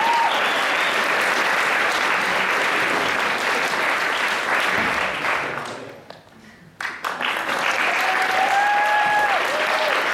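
Theatre audience applauding, with a couple of long, steady whistles. The clapping dies away for under a second about six seconds in, then starts again abruptly.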